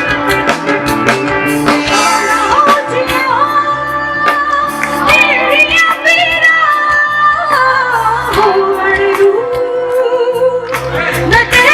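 A live fusion band is playing. A long, ornamented melody line with held, wavering notes sounds over a steady drum beat.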